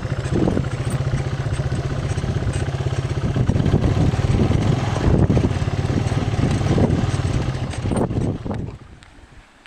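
An engine running steadily with a fast low throb, then cutting off shortly before the end.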